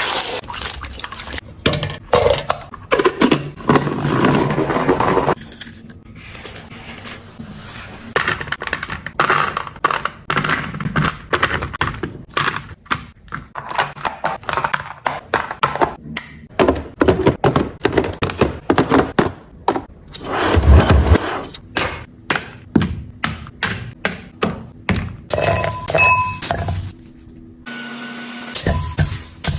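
Containers, jars and food packages being handled and set down while a refrigerator is stocked: a busy run of knocks, thunks and clicks, mixed with scraping and rustling.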